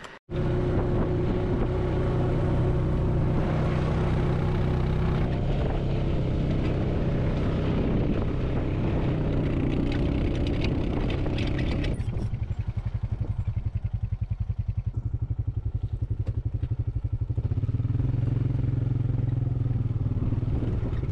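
Quad bike (ATV) engine running while being ridden along a farm track, steady and close. About halfway through the hiss falls away and a plainer, evenly pulsing engine note is left.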